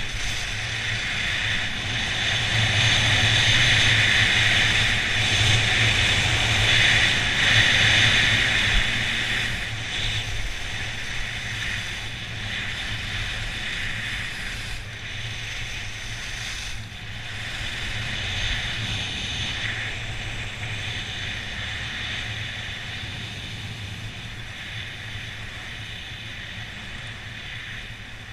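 Skis hissing and scraping over soft spring snow on a downhill run, mixed with wind rushing over the camera's microphone. Loudest in the first third, then fading over the rest.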